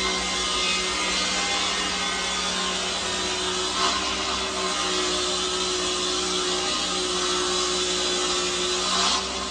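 A woodworking machine's cutter running steadily as a long mulberry board is fed along its fence: a continuous cutting hiss over a steady motor hum.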